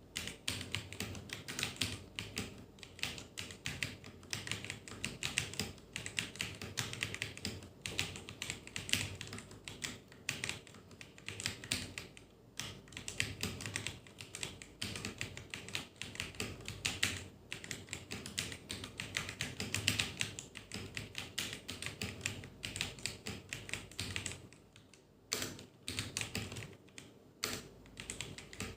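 Steady, fast typing on an iMICE GK-690 mechanical keyboard: a dense, irregular run of key clicks, with a short pause about 24 seconds in.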